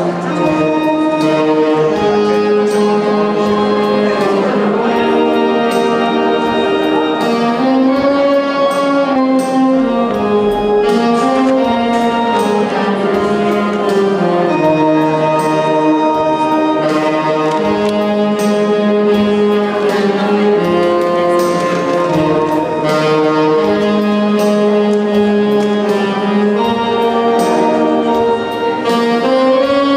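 Instrumental music: a melody carried on long held notes over a steady beat.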